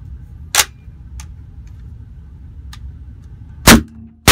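A sharp metallic click of the rifle being handled about half a second in, then a Desert Tech MDR bullpup rifle chambered in 7.62 (.308) firing semi-automatic, one shot near the end and a second just as it ends, each echoing off the range's concrete walls. These are test shots after the caliber conversion.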